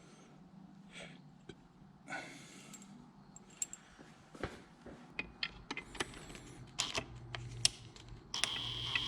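Light metallic clicks and taps of engine parts and hand tools being handled on the bench, coming more often in the second half. Near the end a steady, high-pitched hum starts and holds.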